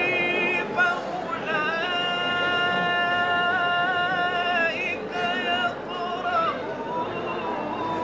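A male Quran reciter chanting in the melodic mujawwad style, holding long ornamented notes with slow pitch bends. The voice is heard unamplified, with the hum of a room full of listeners beneath.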